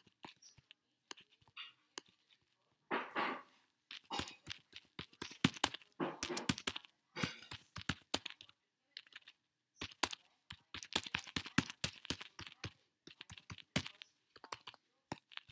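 Typing on a computer keyboard: irregular bursts of sharp keystroke clicks with short pauses between them. There is a brief hiss-like rustle about three seconds in.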